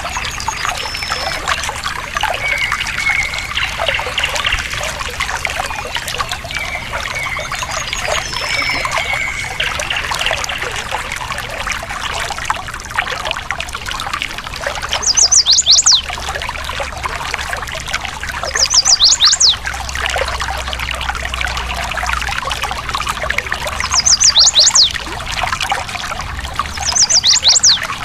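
Stream water steadily trickling and splashing, with birds singing over it. Short whistled notes come early on, then in the second half a bird gives a quick phrase of high sweeping notes four times, every three to four seconds.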